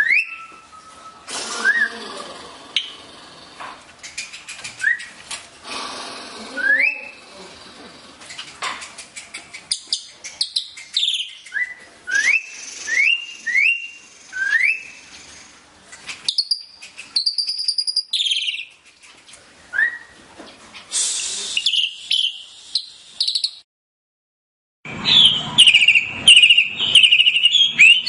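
Wild white-rumped shama singing: a series of short, clear whistles that sweep upward, then higher warbled phrases, and after a short break near the end a fast, dense run of notes.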